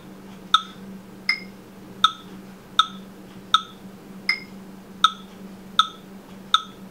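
Metronome clicking at about 80 beats a minute, about nine clicks, with every fourth click higher-pitched to mark beat one of each four-beat measure. A low steady hum runs underneath.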